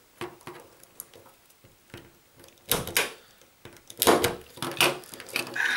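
Sharp plastic clicks and snaps as telephone wires are pressed into the IDC terminals of a small plastic junction box with a punch-down tool, a scatter of light clicks and several louder ones about three and four seconds in.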